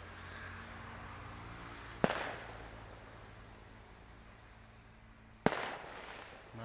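Firecrackers going off: two sharp bangs about three and a half seconds apart, each with a short echoing tail.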